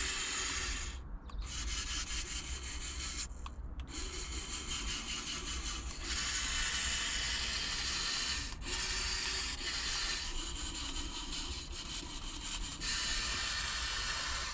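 Motor-driven searchlight rotating and tilting on remote control, its gear motors whirring in several stop-and-start runs.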